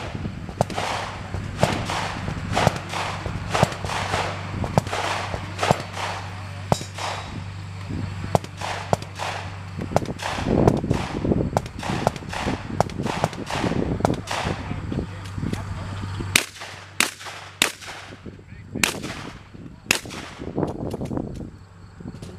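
Firearm shots at a 3-gun match, fired in quick strings of about two a second. Near the end come a few sharper, more widely spaced shots.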